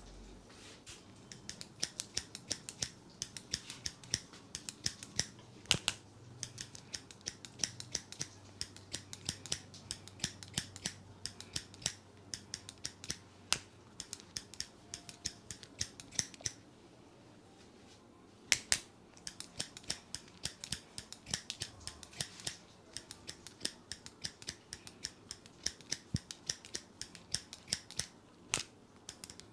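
Barber's scissors snipping hair in quick runs of short, crisp clicks, several a second, with a brief pause a little past halfway and a few louder single snips.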